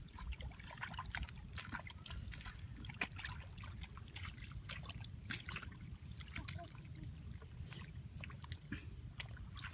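Hands groping and sloshing in shallow muddy water, making many small irregular splashes and wet clicks over a steady low rumble.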